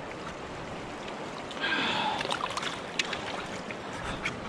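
Steady rush of flowing river current, with a short breathy sound near the middle and a single click about three seconds in.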